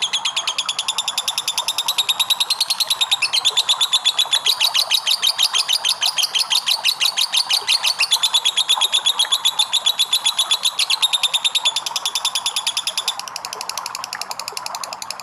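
Lovebird giving a long ngekek: a rapid, high-pitched chattering trill of about ten notes a second, kept up without a break until it drops away near the end.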